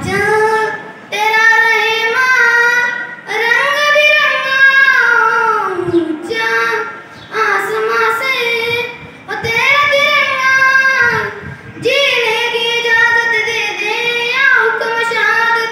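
A boy singing a Hindi patriotic song solo and unaccompanied into a microphone, in held phrases of one to three seconds with short breaks for breath between them.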